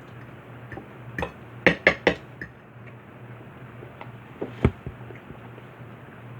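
Eating utensils clinking against dishes at a meal: a quick run of four sharp clinks, then two more a couple of seconds later, over a steady low hum.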